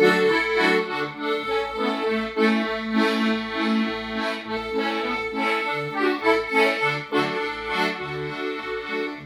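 Instrumental break in a gospel song: held chords with a reedy, accordion-like tone over a bass line that moves about every half second.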